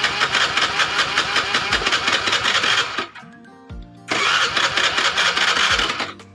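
Electric starter cranking the single-cylinder engine of a carburetted Honda Vario 110 scooter in two bursts, about three seconds and then two seconds long, without the engine catching. The scooter has spark and compression yet will not start; the mechanic suspects a faulty CDI or pulser.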